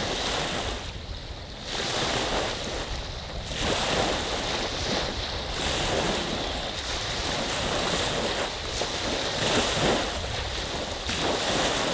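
Lake waves rolling in and washing onto a beach, swelling and ebbing every couple of seconds, with a low rumble of wind on the microphone.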